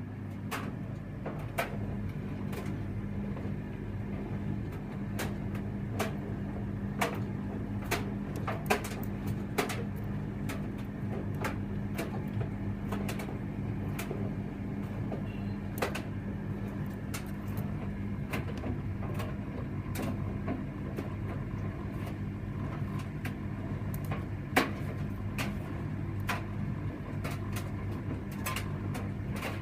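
Electra vented tumble dryer running: a steady low motor hum with irregular clicks and knocks from the washing tumbling in the drum.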